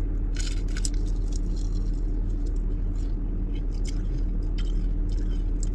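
Crunchy bites into crispy Chickenjoy fried chicken about half a second in, followed by chewing and a few fainter crackles, heard inside a car cabin over the steady low drone of the car idling.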